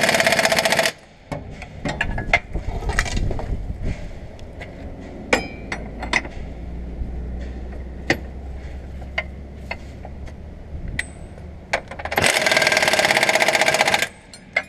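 Pneumatic impact wrench hammering on the bolts of an axle mounting bracket, in two bursts: one that stops about a second in and one of about two seconds near the end. Between them come scattered metal clinks and knocks over a low hum.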